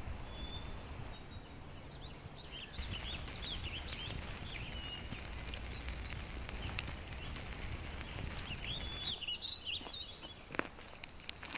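Small birds chirping in two short spells of quick, rising and falling high notes, over a steady low outdoor background noise.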